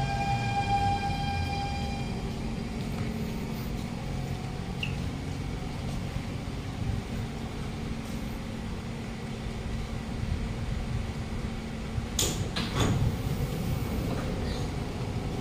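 Siemens C651 MRT train pulling in to a stop: its traction motors' electronic whine fades out in the first two seconds, leaving a steady hum while it stands. About twelve seconds in, its doors slide open with a few sharp knocks.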